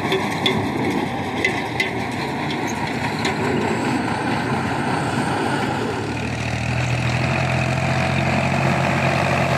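Diesel tractor engine working in a field, heard against a rough noisy background with scattered clicks. About six seconds in, a steady low engine drone comes up and holds.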